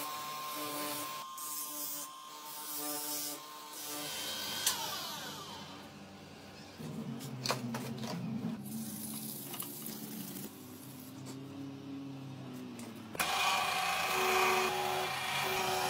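Bench grinding and polishing wheels working a brass knife guard, a hissing grind that comes and goes, under a melodic background music track; a few sharp clicks come in the middle, and the grinding is louder near the end.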